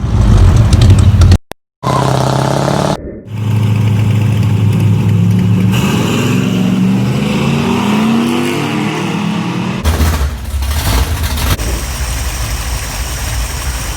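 Car engine running and revving, in several short clips cut together; in one rev the engine climbs steadily in pitch.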